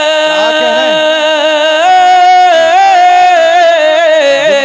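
A man singing a naat into a microphone, holding one long drawn-out note with no words. His pitch steps up about two seconds in and falls back near the end.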